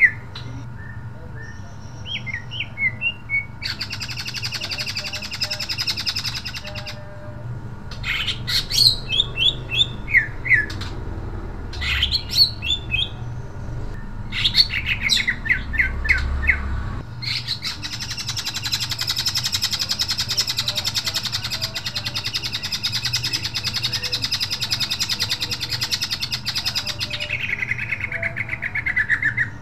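Caged male cucak ijo (greater green leafbird) singing loudly. Bursts of sharp, quick chirps and trills alternate with long unbroken runs of rapid song, the longest filling the second half and sliding down in pitch near the end.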